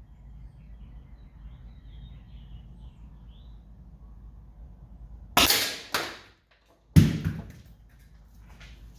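Two shots from an Umarex T4E HDX .68-calibre CO2 gun, about a second and a half apart, each a sharp crack with a short fading tail. A lighter knock comes half a second after the first.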